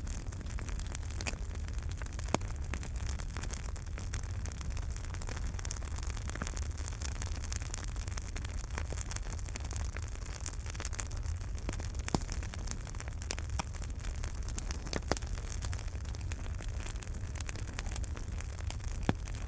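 Wood fire burning in a fireplace: a steady low rumble under a dense stream of small crackles, with a few sharper, louder pops scattered through.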